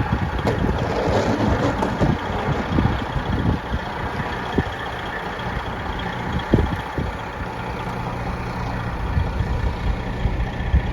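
Truck engine running steadily, with wind on the microphone. A few short knocks sound about four and a half seconds in and twice around six and a half seconds.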